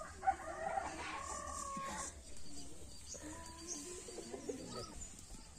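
A sharp clack of the metal wok being set on the clay stove, then a rooster crows once, a call of about two seconds, followed by softer, lower calls.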